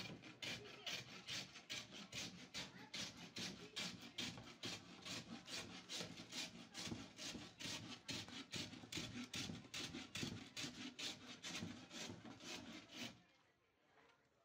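Rhythmic scraping strokes, about three to four a second, like a saw or rasp working wood; they stop suddenly near the end.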